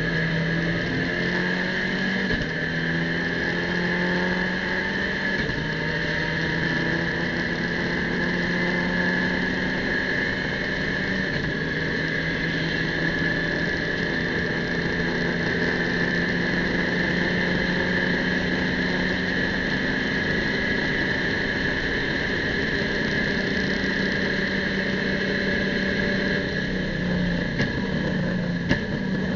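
In-cabin sound of an Abarth race car's engine at full throttle. It climbs in pitch and shifts up several times, then holds high revs in top gear, over a steady high whine. Near the end the engine note falls away as the car slows and changes down.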